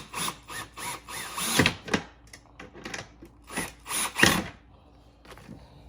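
Power drill running in a series of short bursts during seat hardware assembly, the loudest about a second and a half in and again around four seconds in, trailing off near the end.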